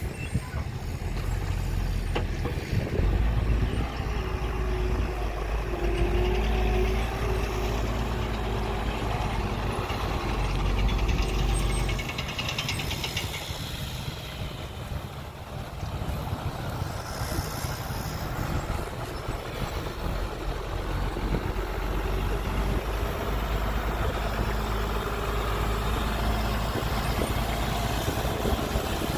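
Heavy truck engine running, a low rumble that grows heavier about three seconds in, eases off about twelve seconds in, and builds again for most of the second half.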